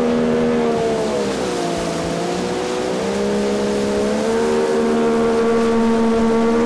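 Motors of an electrofishing boat running steadily: the outboard pushing the boat and the deck generator that powers the shocking gear. The engine pitch sags for a couple of seconds about a second in, then comes back up.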